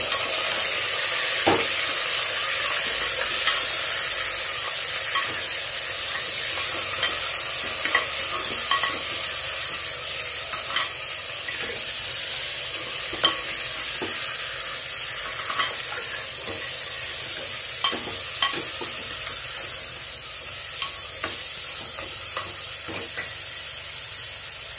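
Mutton pieces frying in hot oil with whole spices in an aluminium pressure cooker, seared until their redness turns white: a steady sizzle, with a spoon scraping and knocking against the pot as the meat is stirred. The sizzle slowly dies down.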